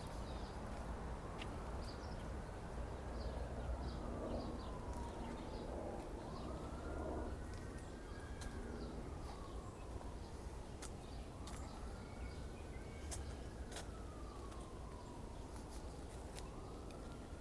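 Faint emergency-vehicle siren wailing, its pitch slowly rising and falling about every four seconds, over a steady low rumble.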